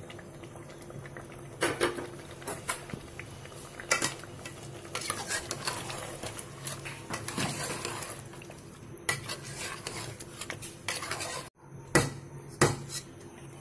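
A steel spoon stirring chicken pieces and a thick yogurt paste in a metal cooking pot, scraping round the pot with several sharp clinks of spoon on metal.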